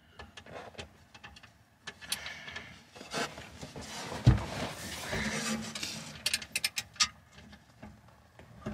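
Hands and a tool working inside a metal center console box at its mounting screws: scattered clicks and scrapes with clothing rustle, one dull knock about four seconds in, and a quick run of sharp clicks near the seven-second mark.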